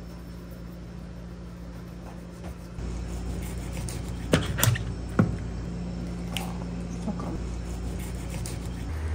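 Kitchen knife working through a kanpachi on a cutting board while the fish is filleted: a few sharp clicks and taps of the blade on bone and board in the middle, with fainter ones after, over a steady low hum.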